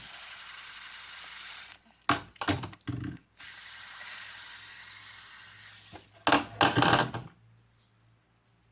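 Fidget spinner whirring loudly on its bearing, a steady high hiss. It is caught and flicked back into a spin with a few sharp clicks about two seconds in, and stopped again with a clatter about seven seconds in. It is a noisy spinner, not a smooth one, which its owner puts down to it probably being metal.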